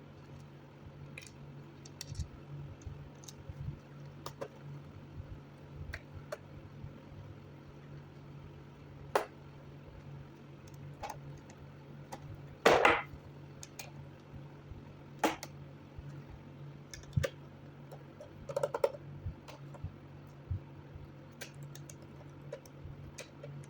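Scattered light clicks and taps from hands working on a laptop, with one louder clatter about thirteen seconds in, over a steady low hum.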